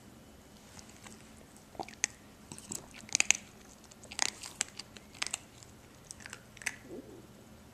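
A puppy chewing and crunching her food: a run of irregular sharp crunches, starting about two seconds in, the loudest about three seconds in.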